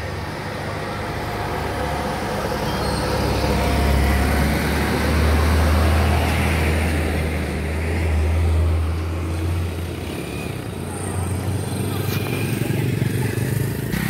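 Heavy trucks passing close on an uphill road, a three-axle truck overtaking another truck: deep engine drone and tyre noise that build to a peak about five seconds in, then fade.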